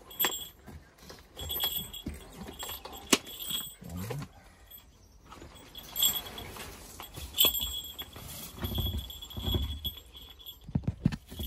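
A hawk's bell jingling in short bursts again and again as the bird moves about, mixed with sharp knocks and thumps.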